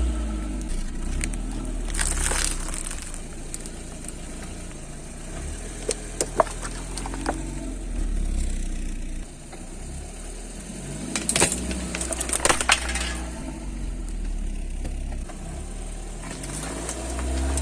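A car's tyres rolling slowly over crunchy objects and crushing them: sharp crackling and snapping in short clusters about two seconds in, around six to seven seconds, and again from about eleven to thirteen seconds, over the low rumble of the idling engine.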